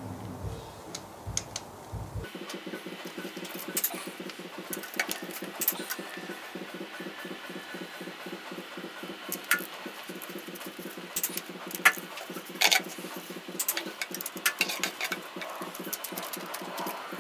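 Click-type torque wrench ratcheting and clicking over on the cylinder head bolts of an IH 354 tractor engine as they are re-torqued. The bolts hold their torque, none of them loose. Scattered light ticks come with a few sharper clicks, the loudest about twelve seconds in.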